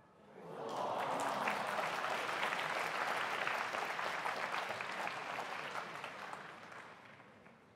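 Audience applauding. The clapping swells in about half a second in, holds steady, then fades away over the last couple of seconds.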